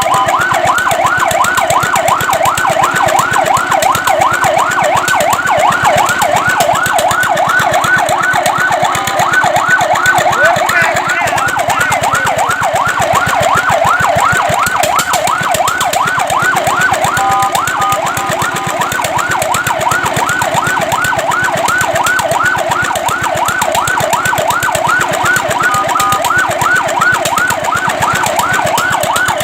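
Fire truck siren in a rapid yelp, about three rising sweeps a second, broken twice by brief steady tones.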